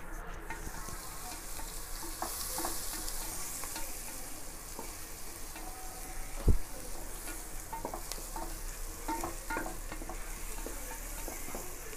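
Chopped onions, turmeric and whole spices sizzling in hot oil in an aluminium pressure cooker, with a wooden spatula stirring and scraping against the pot in scattered clicks. There is a single louder knock about six and a half seconds in.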